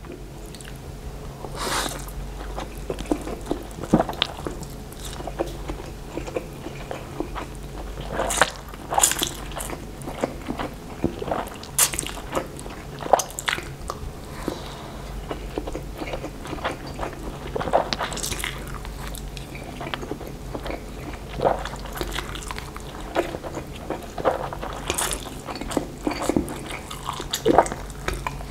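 Close-miked mouth sounds of a man eating fried instant noodles: slurping strands in off chopsticks and chewing, with wet smacks and clicks at irregular intervals. A faint steady low hum sits underneath.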